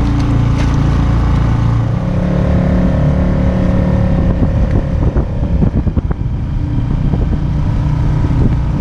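Boat motor running steadily, with wind buffeting the microphone in the middle stretch.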